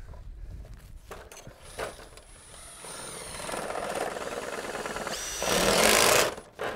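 Cordless drivers running screws into a metal gutter edge. A motor whine climbs in pitch, then a louder, harsher burst of driving comes near the end as a screw is run home.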